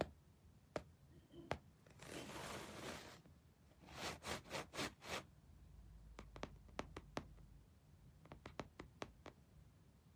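Faint scratching and rustling. A soft rustle comes about two seconds in, then a quick run of five or six scratches, then scattered light clicks.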